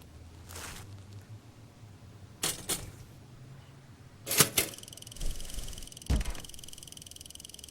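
Cartoon sound effects: several quick whooshes, the loudest a double whoosh about halfway through, and two dull low thumps. Just after halfway a steady high-pitched ringing sets in and keeps going.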